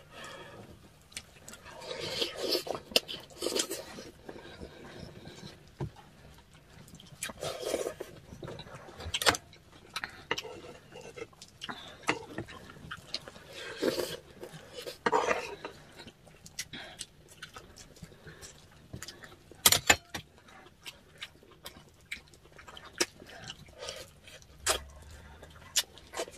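Mukbang eating sounds: people chewing and slurping soup, with many scattered sharp clicks of spoons and forks against bowls and plates.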